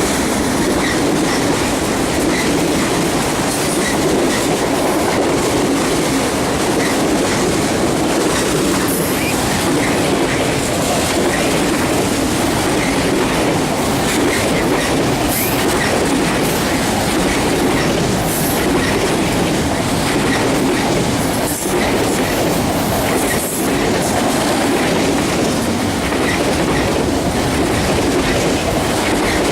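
CSX autorack freight train passing at speed: a steady, loud rush and rumble of the rolling cars, with a light regular clicking from the wheels.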